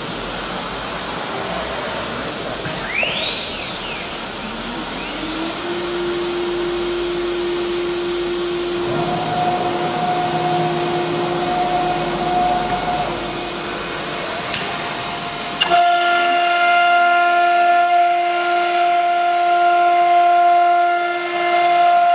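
CNC router spindle spinning up, its whine rising over a couple of seconds and then holding steady, over the rush of the vacuum hold-down table's pump. About two-thirds of the way through, the sound suddenly grows louder, with several steady whining tones stacked together, as the spindle head works over the board.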